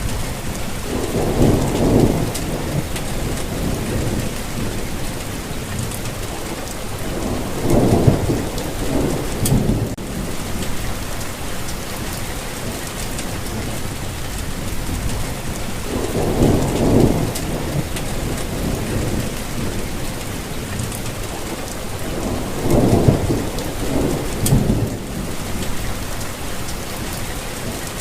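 Steady rain falling, with a low roll of thunder four times, each lasting a second or two.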